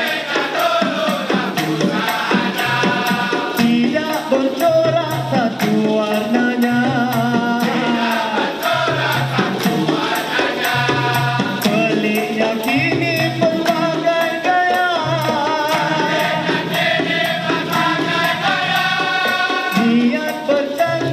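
Dikir barat group performing: a male lead singer and a seated chorus singing, with hand clapping and hand percussion keeping a steady quick beat.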